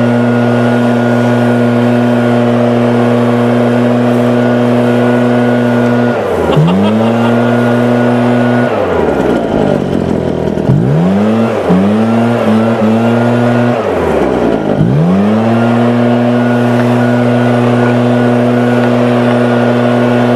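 Husqvarna 580BTS backpack blower's two-stroke engine running at full throttle. The throttle is let off briefly about six seconds in. The engine then falls low around nine seconds in with several quick blips, and climbs back to full throttle near fifteen seconds, where it holds.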